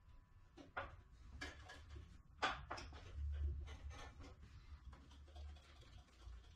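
Clicks and knocks as the plastic blade-tension release lever and knobs on a Makita LB1200F bandsaw's metal upper housing are worked by hand, several sharp ones spaced irregularly, over a low rumble.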